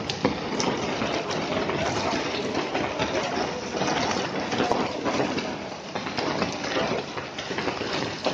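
Heavy rain mixed with hail coming down, a dense steady hiss with many small sharp hits of hailstones striking.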